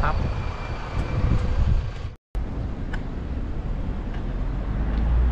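Tuk-tuk ride: engine and traffic noise from inside the open passenger cab, cut off abruptly about two seconds in. After the break, a steady low rumble.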